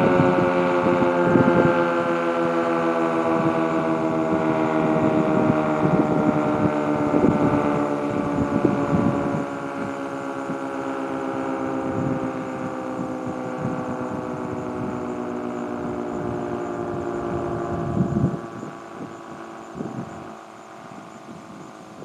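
Outdoor civil defense siren winding down: its chord of tones slides slowly lower and fades, dropping off further near the end.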